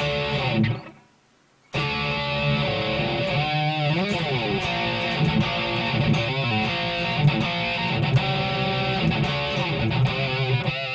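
Harley Benton SC-500 electric guitar played through the Overloud TH3 amp simulator on a heavy, overdriven tone: single-note lines with string bends and vibrato. The playing cuts off about a second in and starts again almost a second later.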